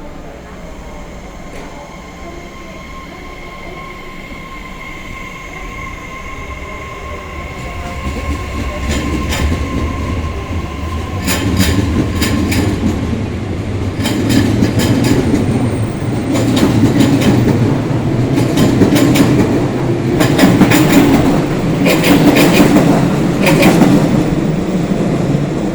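JR Kyushu 811 series electric train approaching and running past, growing louder over the first several seconds. Its wheels then clack over the rail joints in quick groups of knocks, loudest near the end. A faint steady whine sounds during the approach.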